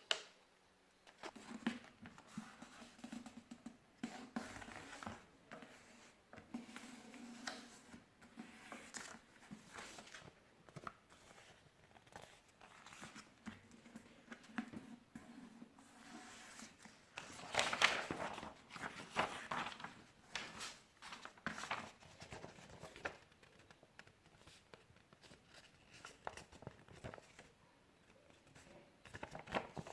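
A sheet of paper being folded and creased by hand: faint, scattered rustling and crinkling, with a louder run of crinkles about two-thirds of the way through.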